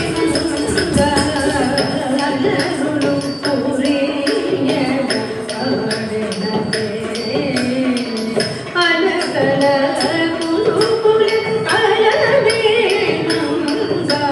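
Carnatic song accompanying a Kuchipudi dance: a voice singing a melodic line over steady, rhythmic percussion strokes.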